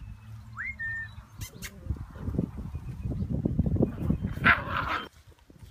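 Airedale Terrier puppy rummaging and chewing in leafy ground cover: a run of low rustles and bumps that builds up over a few seconds, with a brief louder burst near the end. A short thin rising chirp comes about half a second in.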